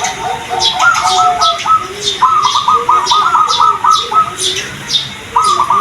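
Zebra doves (perkutut) cooing in several phrases of quick, rolling staccato notes, with short high chirps from smaller birds throughout.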